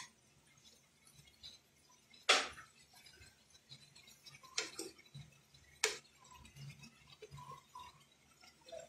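Four sharp knocks and taps of a wooden spatula and a china plate against a nonstick frying pan, spread over a few seconds, with low room noise between them.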